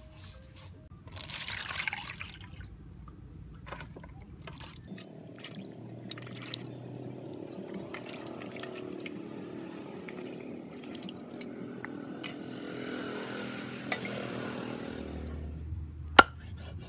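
Wet sloshing and rubbing of water as a freshwater eel is scrubbed by hand in a metal basin. Near the end comes a single sharp knock on a wooden chopping board.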